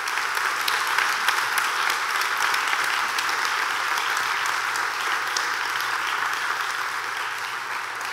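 Church congregation applauding: dense, sustained clapping from a large seated crowd, easing slightly near the end.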